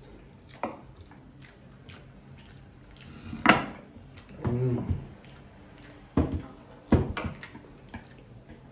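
A person eating noodles with wooden chopsticks from a wooden bowl: a few separate short slurps and mouth sounds, with clicks of the chopsticks and bowl. The loudest comes about three and a half seconds in, and two more sharp ones come a little after six and seven seconds.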